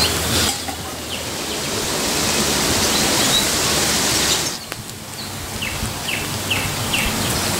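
Outdoor ambience: a steady rushing noise with small birds chirping. The background noise drops suddenly about halfway through, and after that comes a run of four short falling chirps about half a second apart.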